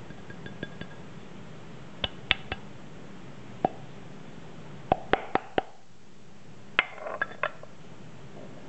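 A small glass cup clinking against the rim of a stainless-steel espresso filter basket as coffee grounds are tapped out of it: sharp clinks with a brief ring, in small groups of two to four, about a dozen in all.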